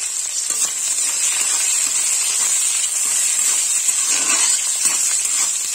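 Chopped onion and green capsicum sizzling in hot oil in a kadai, a steady hiss just after they have gone into the pan.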